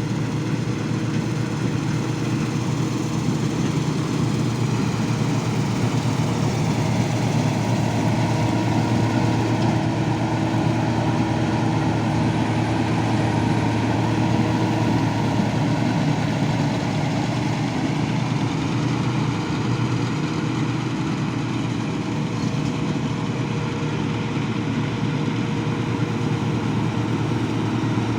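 Claas Tucano 440 combine harvester running steadily at a constant engine speed, a continuous low machine drone with no change in pitch.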